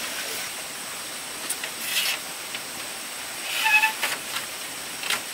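A steady hissing noise with a few sharp knocks and clicks. The loudest, a little past the middle, carries a brief pitched note.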